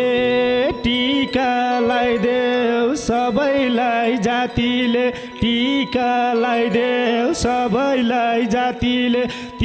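Instrumental break of a Nepali folk dohori band: a fast, ornamented melody runs over a held lower note, with hand-drum strokes keeping the rhythm.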